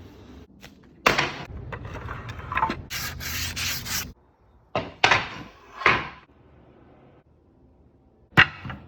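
Sandpaper rubbed over a wooden chair part by hand: a stretch of steady rasping, then three separate strokes and one last short stroke near the end.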